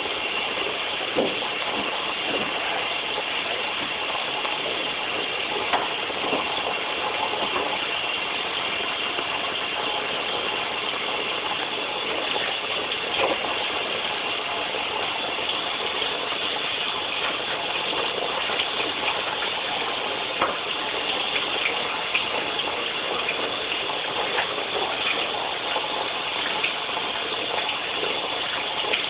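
Aquarium filter running: a steady rush of water, with a few faint ticks.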